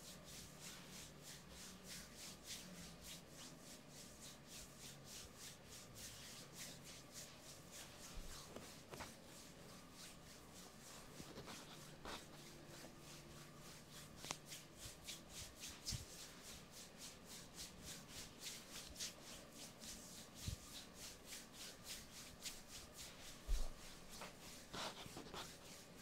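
Hand rubbing and kneading bare skin during a deep hip and buttock massage: a fast, even rhythm of soft rubbing strokes, with a few dull low thumps, the loudest near the end.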